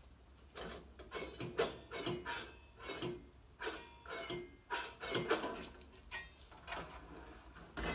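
Steel drawer slides of a US General tool cart being worked by hand, metal scraping and clicking against metal. A quick, irregular run of short strokes, some with a faint metallic ring, starting about half a second in.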